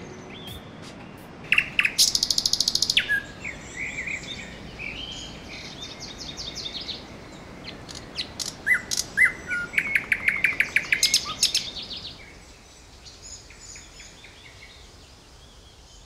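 Lesser spotted woodpecker calling: fast series of high, repeated 'kii-kii-kii' notes, loudest about two seconds in and again from about nine to eleven seconds, among other bird chirps. The calls fade after about twelve seconds.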